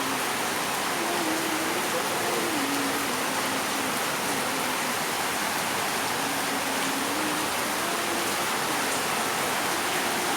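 Steady hiss of rain falling, even and unbroken, with faint voices in the background.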